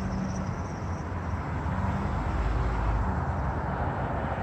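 Car engine running with a steady low hum, heard from inside the cabin as the car pulls slowly forward.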